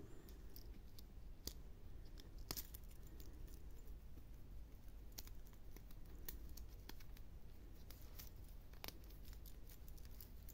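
Faint, irregular small clicks and metallic rattles from a stainless-steel link watch bracelet and its clasp being handled at the wrist, over a low steady hum.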